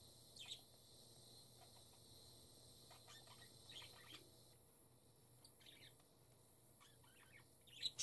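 Pet budgerigars chirping softly: scattered short chirps, one about half a second in, a few around three to four seconds in, and a cluster near the end that holds the loudest chirp.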